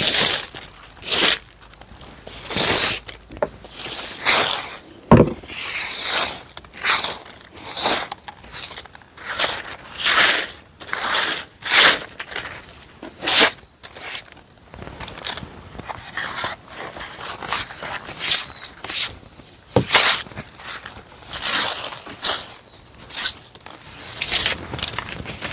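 Stiff plastic hand brush scrubbing a tabletop in repeated scraping strokes, about one or two a second, with dry fallen leaves crunching underfoot.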